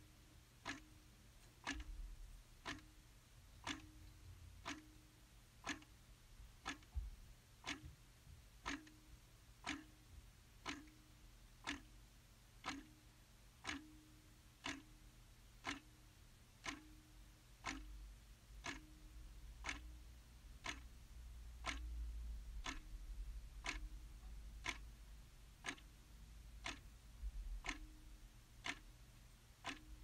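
Clock ticking steadily, one sharp tick about every second, recorded from a real clock. A faint low rumble rises underneath past the middle.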